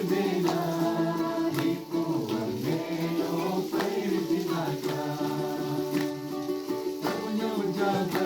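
Voices singing a gospel song to a strummed acoustic string instrument, with a steady strumming beat under the melody.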